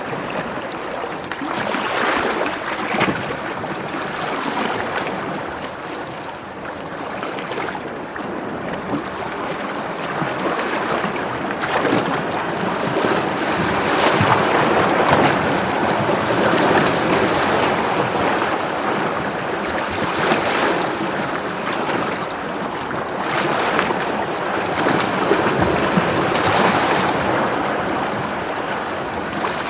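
Sea waves washing and splashing, swelling and easing every few seconds.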